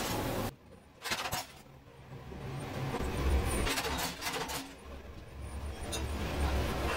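Mechanical flywheel punch press running, a low steady hum that builds up about two seconds in, with several sharp clanks as it punches tennis-ball cover pieces out of green felt.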